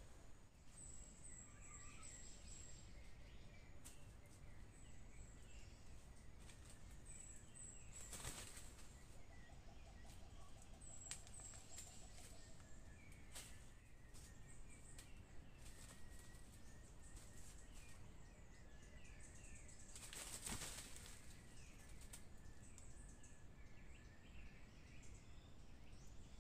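Quiet forest ambience: faint, high-pitched chirps of small birds now and then over a low background. There are two brief rustles, one about eight seconds in and a louder one about twenty seconds in.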